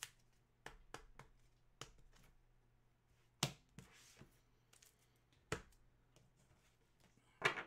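Scattered light clicks and taps of a clear plastic toploader and card being handled and set down on a wooden tabletop, the sharpest about three and a half seconds in, over a faint low hum.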